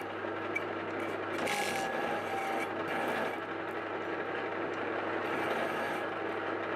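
Metal lathe running while a hand-ground parting tool cuts into a large rotating metal workpiece: a steady motor hum under a continuous rough scraping of the cut, with short brighter scrapes now and then.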